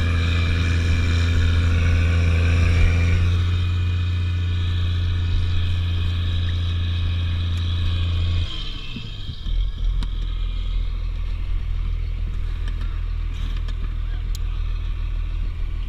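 Snowcat engine running steadily under load while it tows kayaks uphill on ropes. Its drone drops away about eight seconds in, leaving a lower, rougher rumble.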